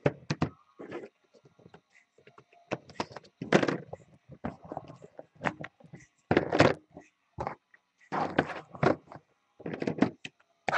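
Cardboard trading-card box being handled and opened on a table: irregular scraping, rustling and thumps in separate bursts.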